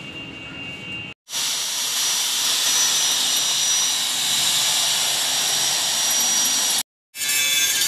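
Handheld electric drill boring into a steel frame: a steady, high-pitched whir with a thin high tone running through it. Near the end it breaks off and an angle grinder starts cutting metal.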